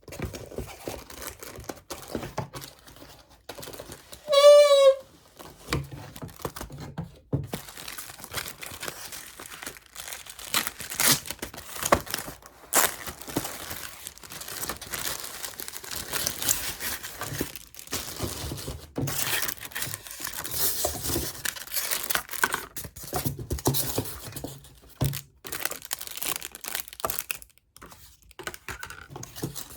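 Packaging being handled and torn open: paper and plastic crinkling, rustling and ripping in irregular bursts. About four seconds in comes a brief, loud, high-pitched squeal.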